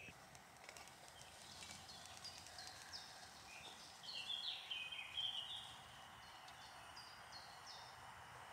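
Faint songbird singing in woodland: short high whistled notes repeating, with a louder phrase of notes stepping down in pitch about four to five seconds in. A few faint clicks near the start.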